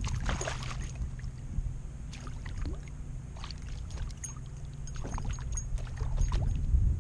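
A small bass splashing at the water's surface as it is reeled alongside a kayak, loudest in the first second, then several smaller splashes and sloshes, over a steady low rumble.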